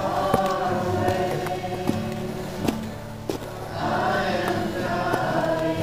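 Choral music: several voices singing held, slowly changing chords. A few sharp clicks are heard along with it.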